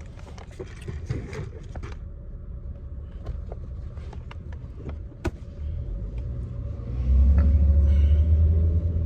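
Low rumble of a car heard from inside the cabin, swelling much louder about seven seconds in, with scattered small clicks and rustles.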